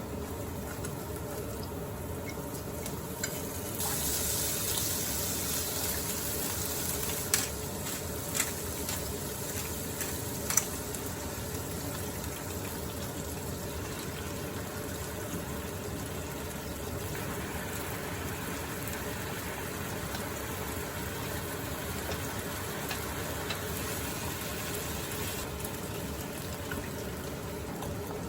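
Kitchen cooking sounds: a pot of kimchi stew boiling, with a louder hiss from about four to eight seconds in and a few sharp clinks of utensils.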